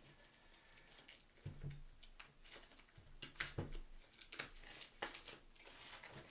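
Plastic shrink wrap being torn and peeled off a Blu-ray box set, crinkling in faint, irregular crackles and clicks, with a sharper crackle at the end.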